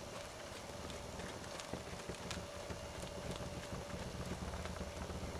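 Hoofbeats of a horse trotting on dirt arena footing, faint irregular thuds, over a low wind rumble on the microphone.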